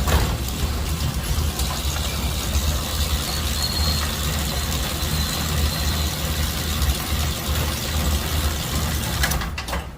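Overhead door opener motor running, driving a large commercial overhead door along its tracks: a steady low hum with mechanical rattle that dies away near the end.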